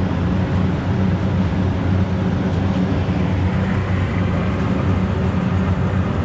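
Steady hum and rush of nearby running outdoor air-conditioning equipment: a low compressor hum under fan noise, unchanging throughout.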